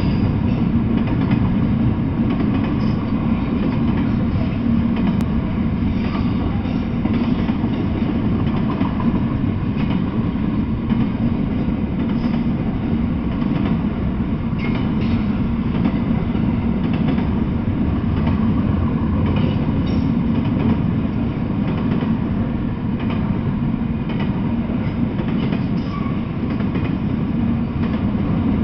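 Double-stack intermodal freight train rolling past, its steel wheels on the rails making a loud, steady rumble and rattle with scattered clicks.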